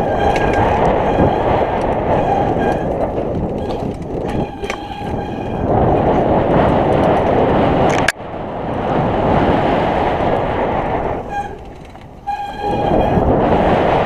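Mountain bike descending a dirt singletrack, heard from a camera on the rider: wind buffeting the microphone and tyres rumbling over the trail, with the rear freewheel hub buzzing at times as the rider coasts. A sharp knock about eight seconds in, then a quieter moment near the end before the rush picks up again.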